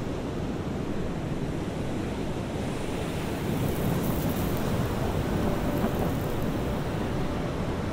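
Strong wind buffeting the microphone over the steady wash of surf on the beach, with a stronger gust about three and a half seconds in.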